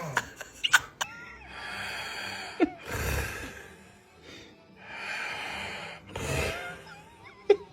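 Snoring: a run of noisy breaths in and out, about four in a row, with a few short snorts and clicks between them.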